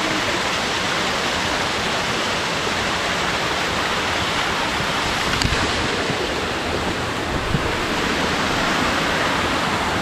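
Small mountain waterfall and stream rushing and splashing steadily over rocks, heard close up.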